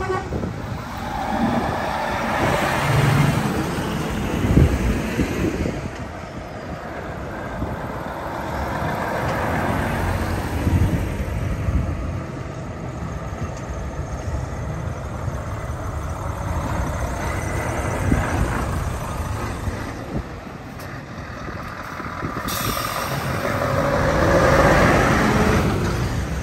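Lorries driving past one after another, their engine and road noise swelling and fading as each goes by.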